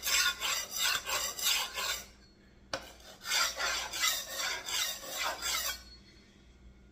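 Steel knife blade scraped back and forth on a whetstone, about three strokes a second, in two runs with a short pause and a light tap just under three seconds in as the blade is turned over. The strokes stop about six seconds in.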